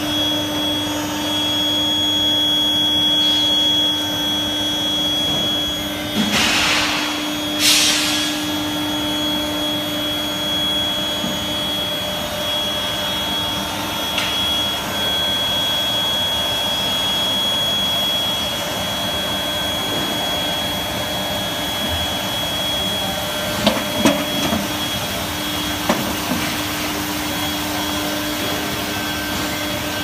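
Industrial induction heating furnace line running: a steady machine noise with a low hum and a thin high steady whine. Two brief whooshes come about a quarter of the way in, and a few sharp clicks near the end.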